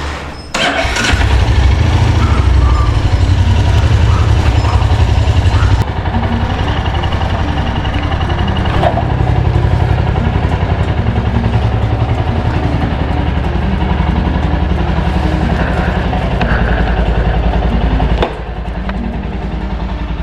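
Royal Enfield Hunter 350's single-cylinder engine running as the motorcycle rides along, a steady low exhaust note that drops in level about six seconds in and again near the end.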